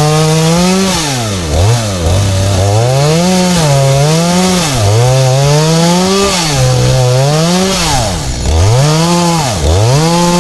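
Chainsaw cutting wood at full throttle: the engine's pitch drops sharply and climbs back several times as the chain bites in and bogs under load. Near the end it settles back to a steady high pitch.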